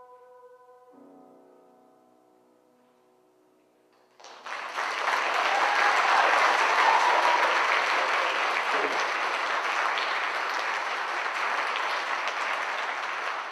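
The last chord of a choir-and-piano piece rings softly and fades away, then an audience breaks into applause about four seconds in and keeps clapping steadily.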